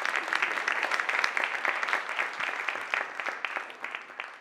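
Audience applauding, a dense mass of hand claps that fades out near the end.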